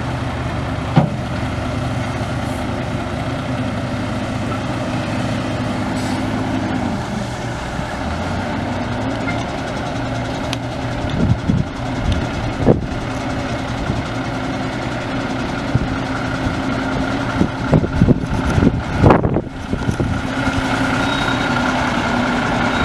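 Detroit Diesel Series 60 11.1L diesel engine of a dump truck running steadily, its pitch dropping slightly about seven seconds in. Several clunks and knocks come in the second half, with a cluster near the end.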